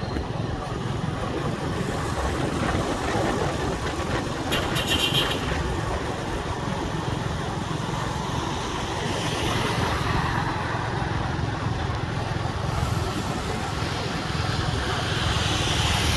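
Steady motor-vehicle engine rumble, with a short high-pitched clatter about four and a half seconds in.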